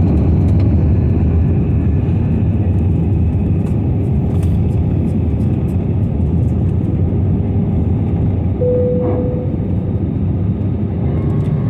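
Steady roar of an airliner's engines and airflow heard inside the passenger cabin during the descent for landing, heaviest in the low end. A short single steady tone sounds once about nine seconds in.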